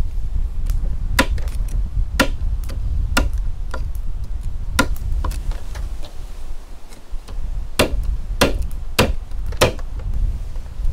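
Kitchen knife chopping through a spiny lobster's shell onto a wooden cutting board. About eight sharp knocks come at roughly one a second, closer together near the end.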